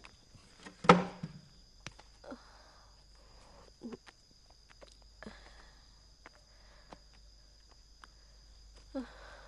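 A woman gagging and retching in a few short, faint heaves, sick from the nausea of early pregnancy, with one sharp knock about a second in.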